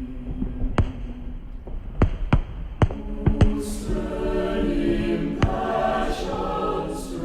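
Background music with sustained choir-like voices that swell and thicken about halfway through, over a low drone. Sharp short hits are scattered through it.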